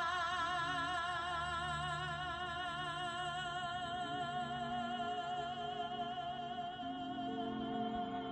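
A singer holds one long note with steady vibrato over soft orchestral accompaniment. The held note slowly fades while the lower accompanying notes change underneath it.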